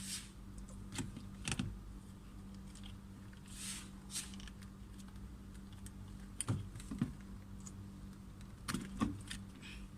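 Irregular light clicks and knocks of hard plastic as a car's power window switch panel and door trim are handled and fitted, over a steady low hum.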